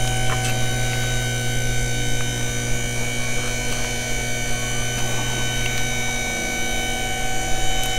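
Steady electrical hum, with several steady tones layered above it and no change in level.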